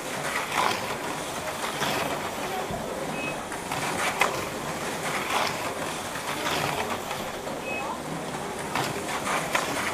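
HO-scale slot cars (Thunderjet 500 type) running laps on a plastic track: a steady whirring hiss of the small motors and pickups, with frequent light clicks and two short beeps.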